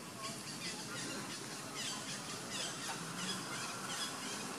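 Many short, high animal calls, each falling in pitch, repeating several times a second.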